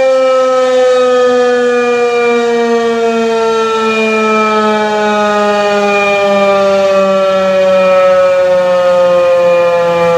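Federal Signal 2001-130 outdoor warning siren sounding loudly, its pitch falling slowly and steadily.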